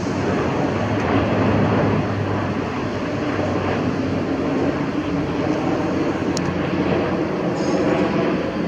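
Boeing 777-300ER jet airliner passing overhead on approach with its landing gear down: a steady, continuous jet engine rumble.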